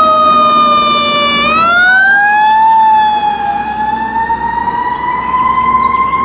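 Fire truck siren wailing: a single loud tone that sags a little, swoops up about a second and a half in, then climbs slowly higher.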